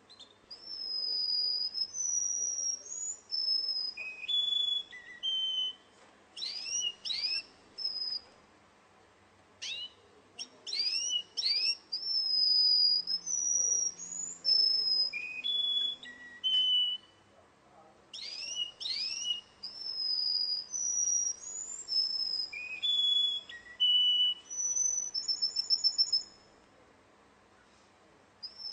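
Russian song canary singing: long clear whistled notes mixed with quick sweeping calls, in two long phrases with a pause of about a second between them. The second phrase ends in a fast trill.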